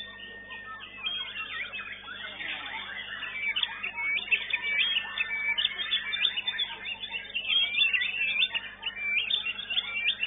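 White-rumped shamas (murai batu) singing over one another: fast whistled phrases that leap up and down in pitch, busier from about three seconds in.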